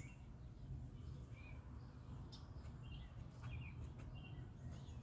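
Faint outdoor ambience: scattered short, high bird chirps over a steady low rumble.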